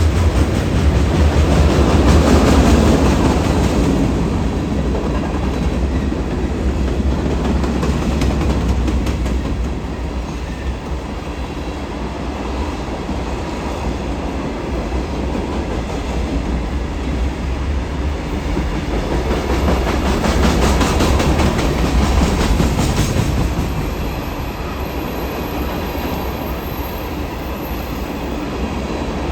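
Kansas & Oklahoma Railroad train with three diesel locomotives rolling past: a steady low rumble of engines and wheels on the rails. It swells twice, about two seconds in and again around twenty seconds in, and eases between.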